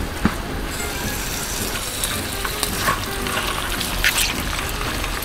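Olive oil sizzling in an aluminium mess tin of mushrooms and octopus being cooked as ajillo, with a few light clicks of chopsticks against the tin as the food is stirred.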